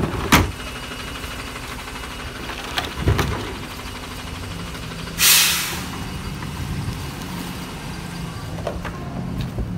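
Garbage truck's engine idling steadily, with a short, loud hiss of released air about five seconds in, typical of truck air brakes. A sharp knock at the start and a duller one about three seconds in.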